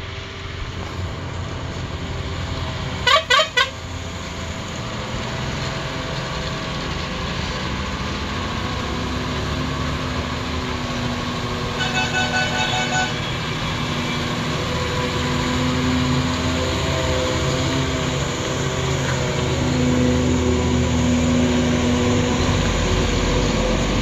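Heavy loaded lorries' diesel engines running as they round a hairpin bend, growing louder towards the end. About three seconds in a horn gives three short loud toots, and near the middle another horn sounds for about a second.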